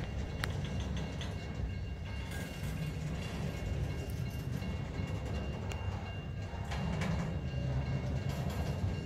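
Freight train of enclosed autorack cars rolling slowly past, a steady low rumble with a few short clicks from the wheels.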